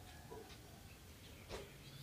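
Near silence: faint background with a few soft clicks, the clearest about a second and a half in.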